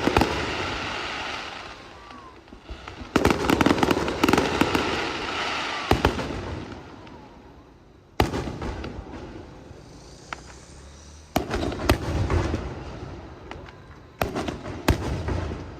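Aerial fireworks shells bursting in volleys: clusters of sharp bangs and rapid crackling come every few seconds, each followed by a long fading echo.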